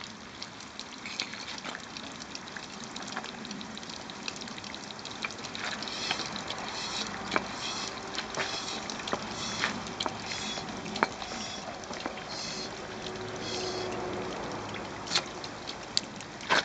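Hand floor pump being worked to force air into a plastic soda bottle, with a hiss on each stroke about once a second, plus liquid trickling and bubbling and the clicks of the pump.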